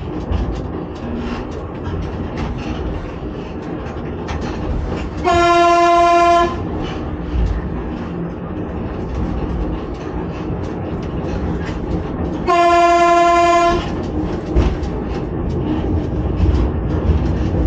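Electric railcar train running along the track, heard from the driver's cab, with a steady rumble and frequent clicks from the rails. The horn sounds twice, each a single steady blast of just over a second, about seven seconds apart.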